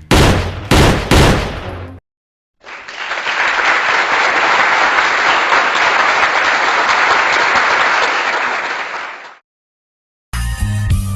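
Crowd applause: a dense, steady patter of many hands clapping that lasts about seven seconds and fades out at the end. It comes after a second or two of loud sharp hits that close the previous effect.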